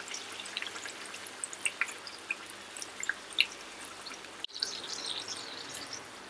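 Urad dal–stuffed puri frying in medium-hot oil: a steady sizzle with scattered small pops and crackles, briefly dropping out about four and a half seconds in.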